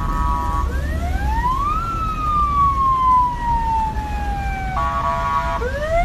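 Aftermarket electronic siren on a private car. A short steady chord of several tones like a horn blast is followed by a wail that rises quickly and then falls slowly over about three seconds. The pattern starts again near the end, over a low rumble.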